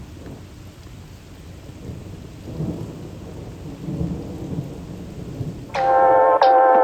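Soft steady hiss with a few low rumbles, then music comes in loudly near the end.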